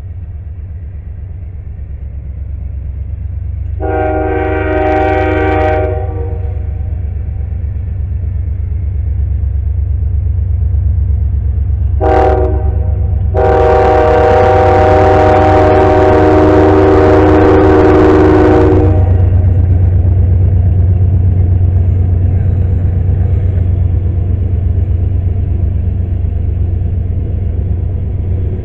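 CSX diesel freight locomotives passing with a steady low engine rumble that grows louder as they come near. The lead locomotive's multi-chime air horn sounds three times: a blast of about two seconds a few seconds in, a short toot about halfway, then a long blast of about five seconds.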